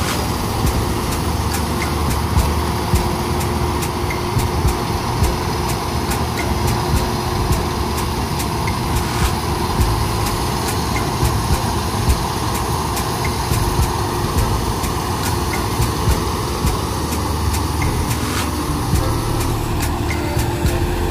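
Rice combine harvester running steadily at work: a constant engine drone with a steady whine over it and frequent small clicks and rattles from the machinery.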